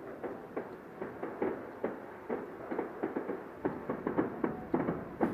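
Distant fireworks popping and crackling irregularly, several short bangs a second.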